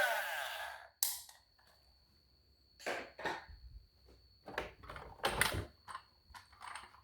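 Background music fades out within the first second. Then a sharp click and a scattered series of short, soft knocks and rustles follow, the sound of small objects being handled, over a faint steady high tone.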